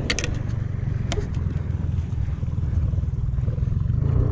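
A boat motor running steadily with a low hum. A few sharp clicks come near the start and about a second in as the bowfishing reel and arrow are handled.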